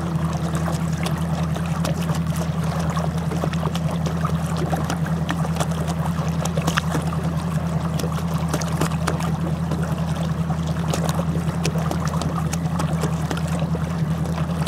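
Water splashing and lapping along the side of a bass boat's hull as it moves slowly across calm water, over the steady low hum of the boat's motor.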